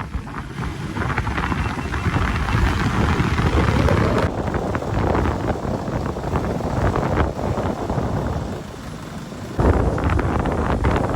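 Motorcycle being ridden, its engine and road noise mixed with heavy wind buffeting on the microphone. The noise dips briefly and comes back suddenly louder about nine and a half seconds in.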